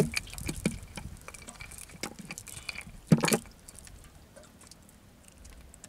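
Wet cast net being handled and picked over on a wooden boat's bamboo-slat floor: rustling and small knocks, a sharp knock right at the start and the loudest one about three seconds in.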